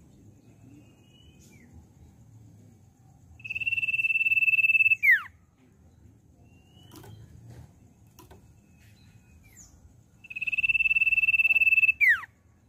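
Common iora (cipoh) song: two long, steady, high whistles, each about a second and a half, ending in a sharp downward slur. Soft, short chirps come between them.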